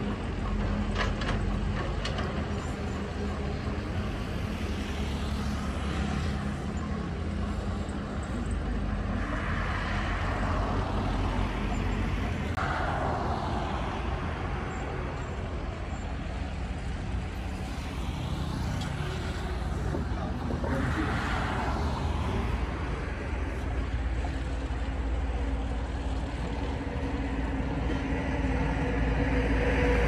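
Diesel engine of a small crawler bulldozer running steadily as it pushes soil, growing louder near the end.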